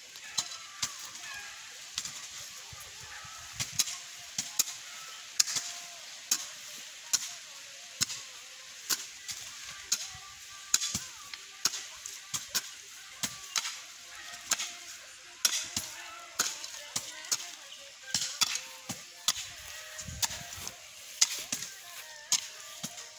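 Hand hoes chopping into soil and grass roots, a sharp strike at uneven intervals, about one a second, from two people digging.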